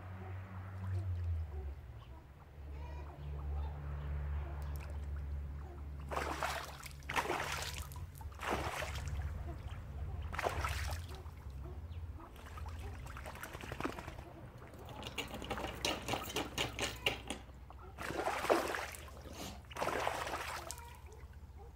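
A mandarin duck bathing in shallow pond water, splashing and flapping in a run of short bursts that starts about a quarter of the way in, over a low steady hum.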